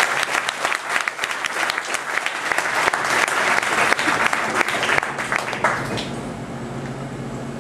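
Audience applauding, dense clapping that dies down about six seconds in.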